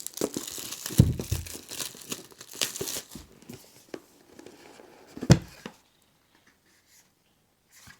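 Plastic shrink wrap crinkling and tearing as it is pulled off a board-game box and crumpled, with a dull thump about a second in and another just past the middle.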